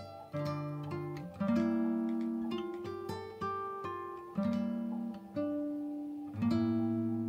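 Background music: an acoustic guitar playing plucked notes and strummed chords, each ringing out and fading before the next.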